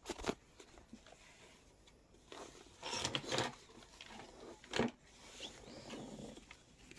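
Faint handling noises after the music has stopped: a few soft knocks and stretches of rustling, with a sharper knock a little before five seconds in.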